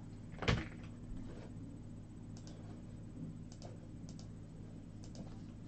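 Faint clicks of a computer mouse and keyboard, a few scattered taps, after one louder knock about half a second in, over a low steady hum.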